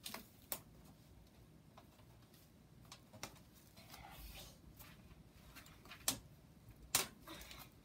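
Scattered sharp clicks and knocks of a Lasko box fan's plastic back grill being handled and fitted against the fan housing, with faint rustling in between. The loudest two knocks come near the end.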